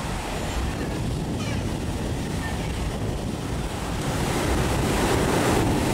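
Sea surf breaking and washing up a sandy shore, with wind buffeting the microphone as a low rumble; the wash swells louder about four seconds in.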